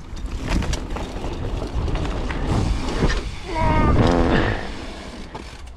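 Mountain bike rolling fast down a dirt trail: a steady rushing noise from the tyres and air, with a low rumble and occasional knocks. About halfway through, a louder wavering pitched sound lasts about a second.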